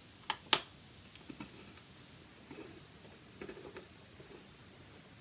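Close mouth sounds of a person eating soft gingerbread: two sharp clicks about half a second in as a piece goes into the mouth, then quiet chewing.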